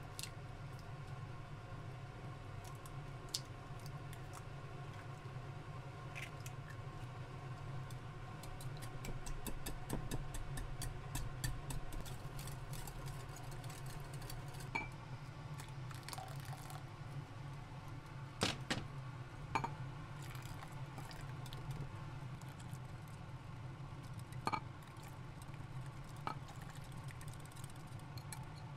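Light clicks, taps and clinks of kitchen utensils and dishes being handled, busiest in the middle and with a few sharper knocks later, over a steady low hum.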